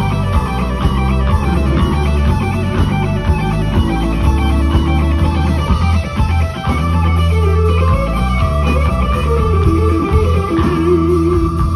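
Electric blues guitar played live through an amplifier: a lead line of single notes over a bass guitar, with pitch-bending string bends in the second half.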